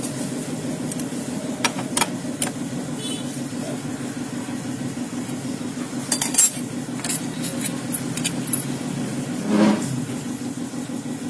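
Metal hand tools clinking and tapping on scooter parts over a steady low mechanical hum. There are scattered clicks and a louder knock about nine and a half seconds in.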